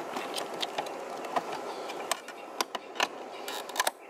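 Plastic mirror cap of a 2015 Mustang GT being pressed onto its side-mirror housing: a run of sharp clicks and snaps as the cap's clips seat. The loudest clicks come close together near the end.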